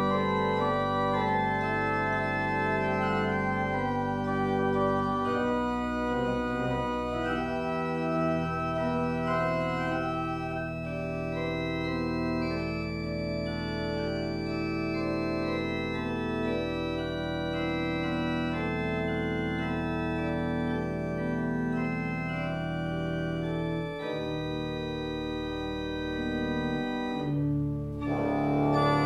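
Church organ playing slow, sustained chords over long-held bass notes, the chords changing every few seconds, with a brief break in the low notes just before the end.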